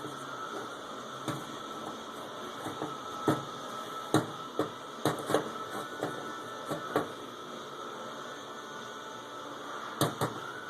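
Scattered sharp clicks and knocks of tools and parts being handled during work on the forklift engine's valve train, over a steady background hum. The engine is not running.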